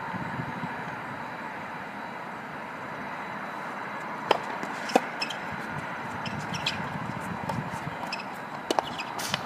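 Tennis ball struck by a racket on a serve, with two sharp pops about half a second apart, followed by lighter ball hits and bounces and another pair of sharp hits near the end, over a steady background noise.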